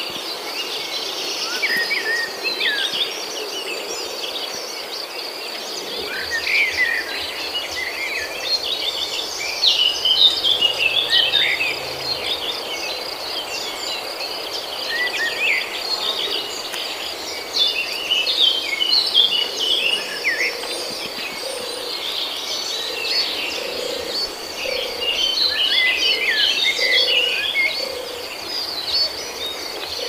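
Outdoor ambience: a steady high-pitched insect drone with many birds chirping over it, in short rising and falling calls throughout.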